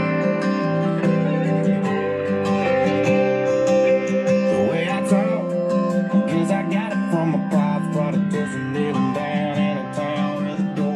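Guitar music playing through newly installed Alpine door speakers in a Ford F-150 cab, as a sound test of the new speakers.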